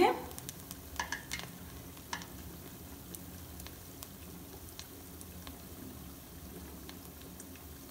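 Moong dal fritters deep-frying in hot oil: a steady low sizzle with scattered crackles and pops, which come thicker in the first couple of seconds.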